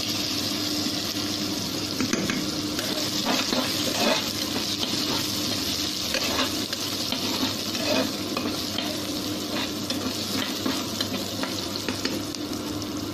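Sliced onions and cumin seeds sizzling in hot oil in a steel pot, with a metal spatula stirring and scraping across the pot's bottom every second or two as the onions brown.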